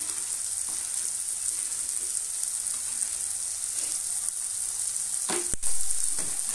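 Chopped tomato, capsicum, onion and peas sizzling steadily in oil in a kadhai, with one sharp knock about five and a half seconds in.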